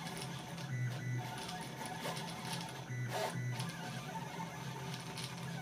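3D printer's stepper motors whining as they drive a ballpoint pen across paper in short plotting moves, the pitch shifting with each change of direction and speed.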